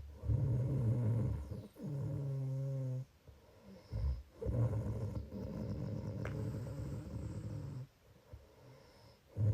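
Snoring in long, low, rattling breaths: two back to back in the first three seconds, then a longer one from about four and a half seconds to nearly eight, with a short snort between them and another near the end.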